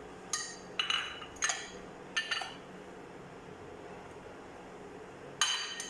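A kitchen utensil clinking against a mixing bowl while ingredients are mixed: four short ringing clinks in the first two and a half seconds, then one more near the end.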